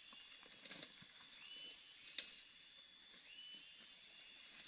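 Faint tropical forest ambience. An animal call repeats about every two seconds: a short whistle that slides up and holds, with a hiss above it, over a steady high whine. Three sharp snaps, the last and loudest near the end, fit footsteps breaking twigs in the undergrowth.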